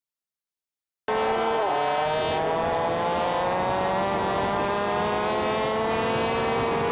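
After about a second of silence, a small mini bike engine runs steadily under load. Its pitch dips briefly, then climbs slowly and evenly as the bike gathers speed.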